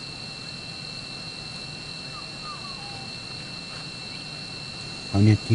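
A steady insect chorus: a continuous high buzz with a fainter steady tone beneath it, and a few faint chirps near the middle. A low-pitched voice starts speaking near the end.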